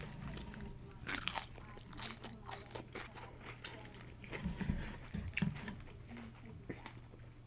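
Close-miked eating sounds: a person biting and chewing food, with wet crunches and clicks coming in irregular bunches, loudest about a second in and again in the middle.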